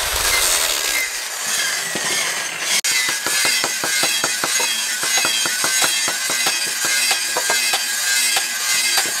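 Angle grinder with a sanding disc whining as it sands the wooden axe handle, for about the first three seconds. It then cuts off and gives way to a quick run of sharp, light taps, several a second.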